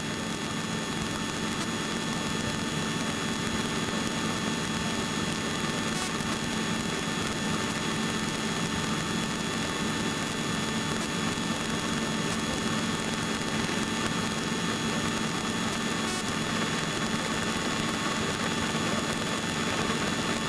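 Helicopter in steady flight, heard from inside the cabin: an even rushing noise with a constant whine of several fixed tones, unchanging throughout.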